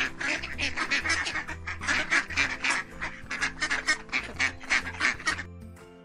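Mallard ducks quacking in a rapid, busy run of short calls, about four or five a second, which stop shortly before the end, over light background music.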